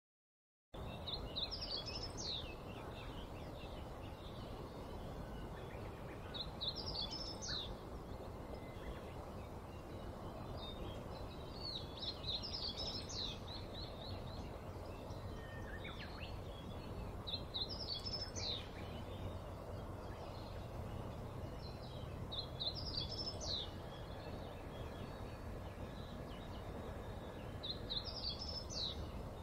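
A songbird singing the same short, quick phrase of several high notes about every five seconds, over steady outdoor background noise with a faint low hum.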